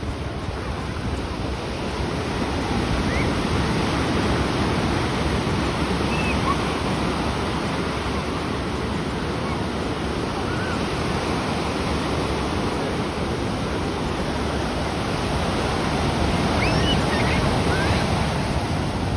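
Ocean surf breaking and washing up the beach, a steady rush of water that swells louder twice, the second time near the end as a large wave breaks.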